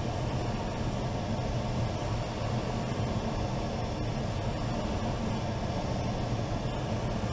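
Steady rush of air over a glider's canopy in gliding flight, heard from inside the cockpit, with a constant low drone underneath.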